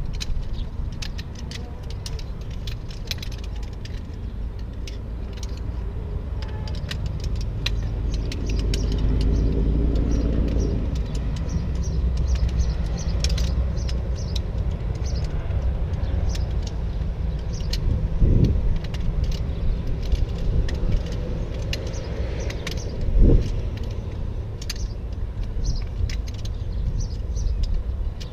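Light clicks and metallic clinks of a camp chair's shock-corded aluminium frame poles being pulled apart and folded by hand, over a steady low rumble. Two louder knocks come about 18 seconds in and again five seconds later.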